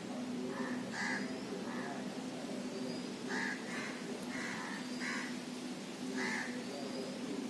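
Birds calling with short harsh calls, about ten at uneven intervals, over a steady low hum.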